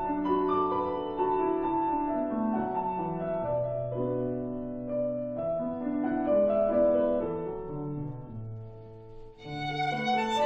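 Background instrumental music with sustained notes played by bowed strings. It dips briefly near the end before a brighter passage begins.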